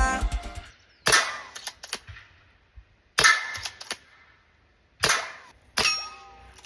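PCP air rifle firing four shots: the first three about two seconds apart, the fourth close after the third. Each is a sharp crack followed by a few fainter clicks.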